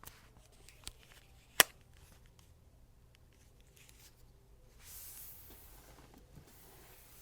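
A few sharp clicks and knocks, the loudest about a second and a half in, then a short hiss around five seconds in; no ringtone is playing.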